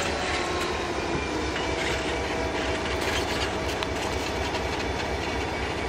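EMD GP30 diesel-electric locomotive moving slowly past, its diesel engine running steadily.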